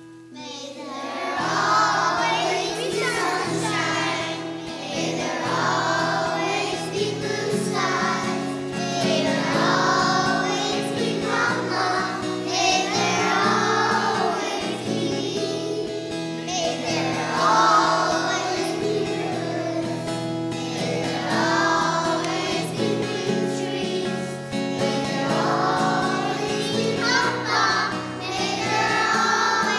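Music with singing voices, choir-like, over steady accompaniment; it comes in loudly about a second in.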